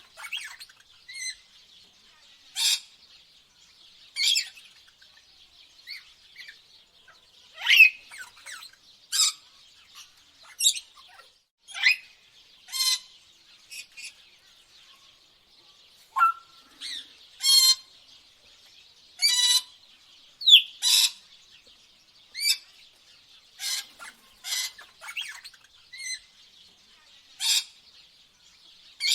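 Birds chirping and calling in short, separate bursts every second or so, some calls sliding in pitch, over a faint steady high hiss.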